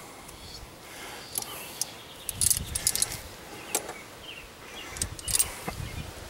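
Scattered light metallic clicks and clinks from pliers and small metal parts handled at a truck's front steering knuckle, thickest about two and a half to three seconds in.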